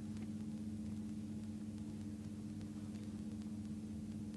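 A steady low hum with faint hiss.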